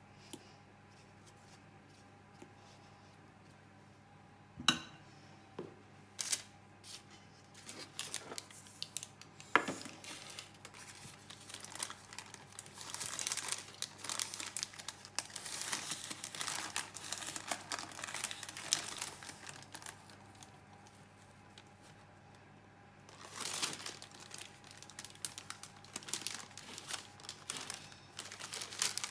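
Baking paper crinkling and rustling as it is lifted and peeled from a rolled cake, in two long stretches separated by a short pause. A few sharp knocks come before the crinkling starts.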